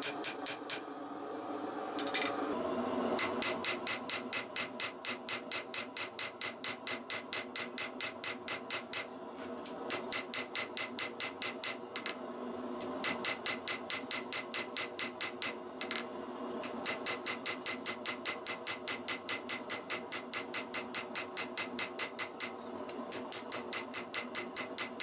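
Forging hammer striking hot 1084 carbon steel on an anvil in a fast, steady run of blows, about five a second, with a few brief pauses between runs, as a knife blade is drawn out.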